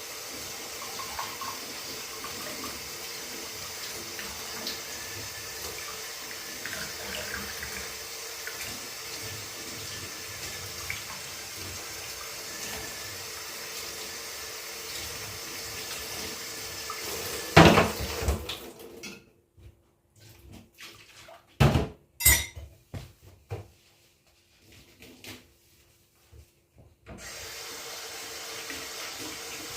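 Water running steadily from a tap into a kitchen sink. A little over halfway through comes one loud clatter, then the water stops and a few separate knocks are heard before it runs again near the end.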